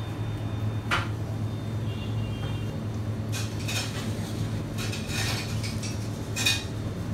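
Wooden spoon scraping and tapping in a paper ice cream cup, several short scrapes with a sharp click about a second in, over a steady low hum.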